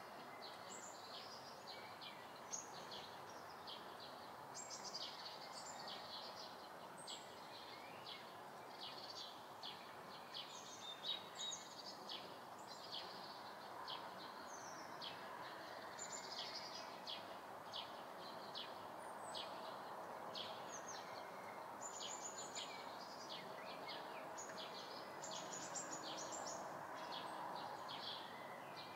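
Summer-morning room ambience: many small birds chirping outside, heard from inside a room, with several short high chirps a second over a steady low background hiss.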